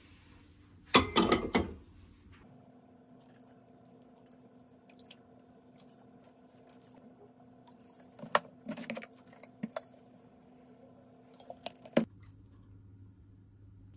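A gas stove burner's igniter clicks rapidly for under a second as it is lit. Then a faint steady hum runs under a few light clicks and taps as bottles of seasoning are opened and handled.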